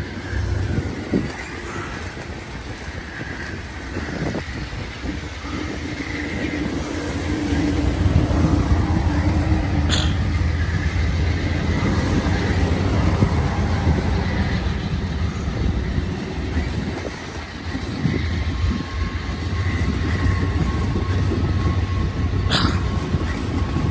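Amtrak California Zephyr's double-deck Superliner passenger cars rolling past at low speed: a steady rumble of wheels on rail that grows louder about eight seconds in, with two sharp clicks, one about ten seconds in and one near the end.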